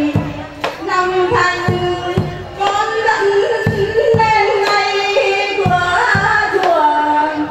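A woman singing a slow, sliding melody into a microphone over instrumental accompaniment, with regular sharp percussion strikes.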